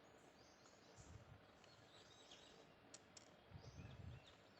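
Near silence: room tone with a few faint low knocks and two faint clicks.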